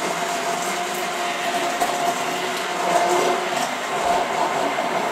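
Electric hand-held stick blender running steadily, its motor whine held at one pitch, as it purées a thick, still-lumpy mix of soaked cashew nuts and silken tofu.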